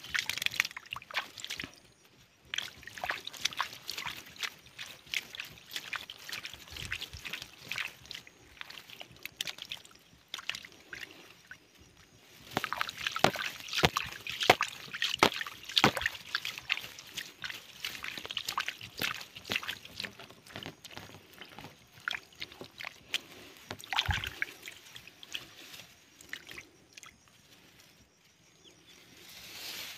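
Shallow muddy paddy water sloshing and squelching as hands grope through the mud, with irregular wet splashes and slaps, busiest about halfway through.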